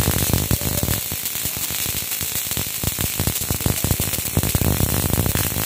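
Robotic MIG welding arc crackling steadily, a dense irregular sputter of fine clicks as the robot's torch lays a weld bead.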